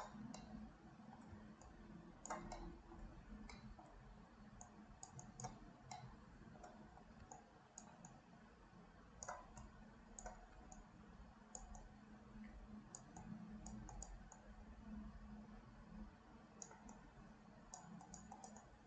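Near silence, with faint, irregular clicks of a computer mouse, some in quick clusters, over a faint steady low hum.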